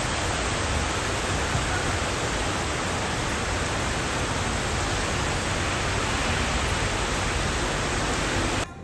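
Loud, steady rushing noise with no pitch or rhythm, cutting in and out abruptly.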